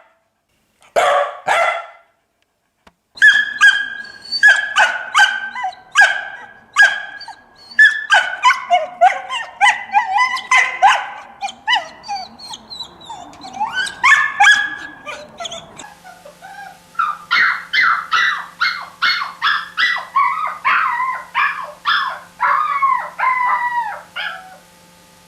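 Dogs barking: two barks, a short pause, then long runs of quick, repeated barks. About two-thirds through, a different barking recording starts with a steady low hum behind it, and the barking stops shortly before the end.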